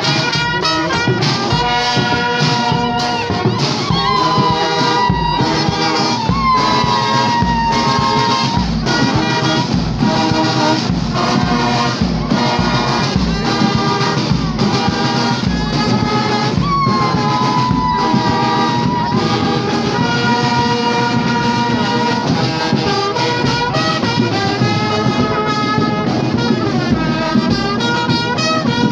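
Brass marching band playing a tune on trumpets, trombones and sousaphone over a steady drum beat, with a few notes sliding in pitch.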